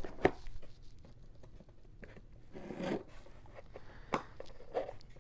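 Sealing tape being peeled and torn off a box, with scattered crinkling and a couple of sharp clicks.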